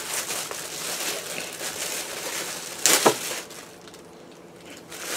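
A clear plastic packaging bag crinkling as it is handled, with one louder, sharp crackle about three seconds in, then quieter near the end.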